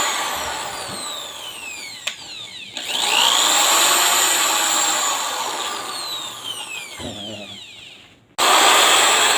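KYK 750-watt corded drill motor run in plain drilling (wood) mode, without hammer action, in bursts: it winds down to a stop about two seconds in, starts up again near three seconds and coasts down to a stop near eight seconds, then starts again near the end.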